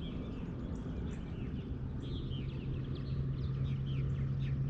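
Small birds chirping over a low rumble of wind, with a steady low hum from a bow-mounted electric trolling motor coming in about two seconds in.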